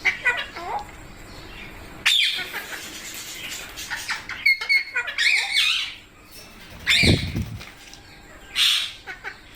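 Indian ringneck parakeets squawking and chattering, a run of short high, bending calls and chirps from several birds, with a brief low rustle about seven seconds in.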